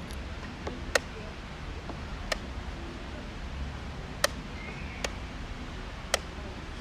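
Five sharp, hard clicks at irregular intervals about a second or two apart, over a steady low background hum.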